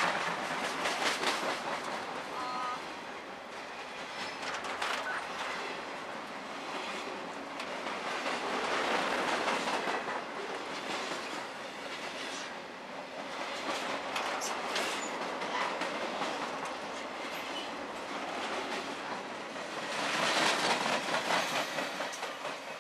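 Freight cars of a passing mixed freight train rolling by close: steel wheels clicking over rail joints over a steady rumble and rattle, swelling louder a little before halfway and again near the end.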